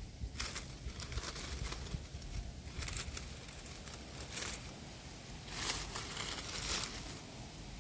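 Dry leaf litter and brush rustling and crackling in short, irregular bursts as someone moves through it, with a longer run of crackling a little past the middle.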